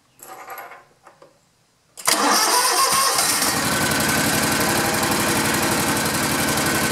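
Kawasaki riding-mower engine starting: after a faint short sound and a few small ticks, it catches suddenly about two seconds in and settles into a steady idle.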